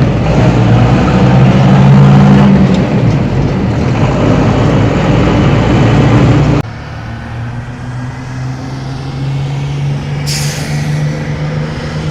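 Heavy road vehicle engine running loud and steady until a sudden cut about six and a half seconds in. A quieter engine hum follows, with a short hiss of released air just past ten seconds, like a truck or bus air brake.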